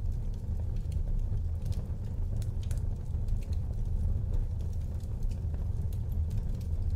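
Fire burning in a fireplace: a steady low rumble with scattered sharp crackles and pops at irregular intervals.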